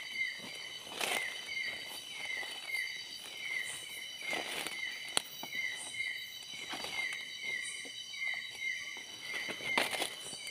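Night insect chorus of several steady, high-pitched calls, with a short chirp repeating about twice a second. Footsteps rustling through leaf litter and undergrowth come through now and then, about four times.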